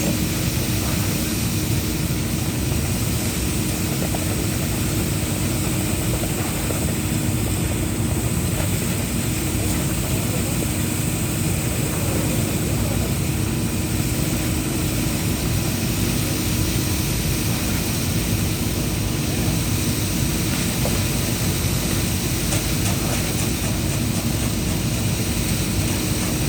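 A heavy engine running steadily at a constant speed, with a steady hum and no breaks or changes in pace.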